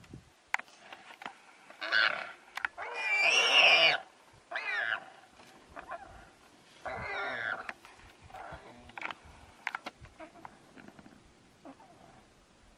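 Warthog squealing in distress in several short high bursts, the longest and loudest about three to four seconds in, as a lioness holds it in her bite; faint clicks and rustles come between the squeals.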